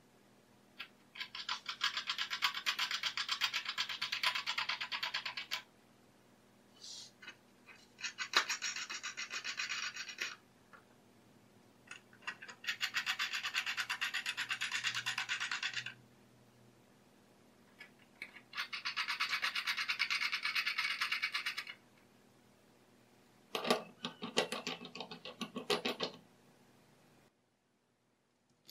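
Steel screws being threaded by hand into the tapped holes of an angle grinder's steel flange nut: metal threads rasping against each other in five bursts of a few seconds each, with a fine rapid ticking.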